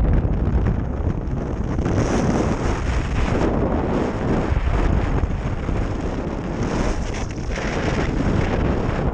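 Strong wind buffeting a small GoPro Session camera's microphone, a steady heavy rumble and rush from a wind of about 25 knots at sea.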